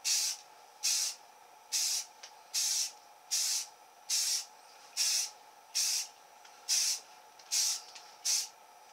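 Aerosol spray paint can hissing in short, evenly spaced bursts, eleven in all at a little under one a second, as it is swept in passes over a rifle barrel.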